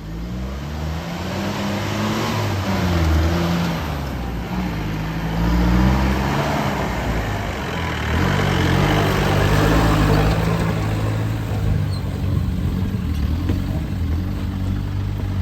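A 4x4 off-road vehicle's engine driving over a rough dirt track. Its pitch rises and falls repeatedly as the throttle is worked.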